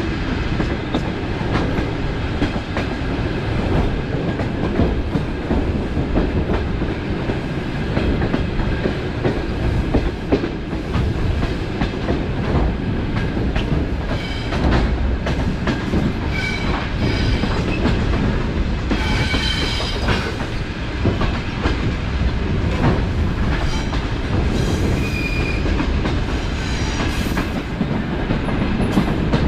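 DC electric suburban train running at speed, heard from inside the carriage: a steady rumble of wheels on rail with clickety-clack over the rail joints. Short high-pitched squeals come now and then in the second half.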